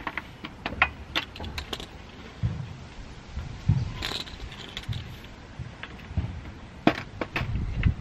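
Irregular clicks and knocks of plastic and metal parts being handled as a radiator and its plastic cooling-fan shroud are fitted into the support bracket, with a cluster of sharper clicks about four seconds in and another near the end.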